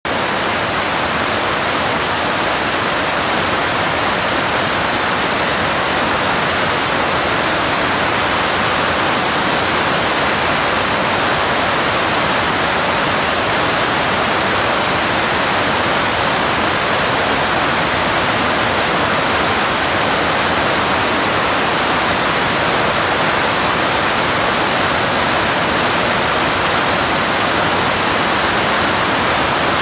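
Floodwater pouring over a low dam's spillway into churning whitewater: a loud, steady, unbroken rush.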